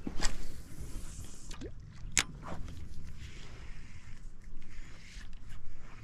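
Fishing gear being handled on a bass boat: two sharp clicks, one just after the start and one about two seconds in, with a few fainter ticks over a low rumble of wind and water.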